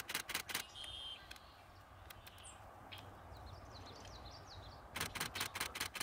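Camera shutter firing in rapid bursts of about eight to ten clicks a second: one burst ends about half a second in and another starts near the end. Between the bursts, small birds chirp faintly, with a quick run of high chirps in the middle.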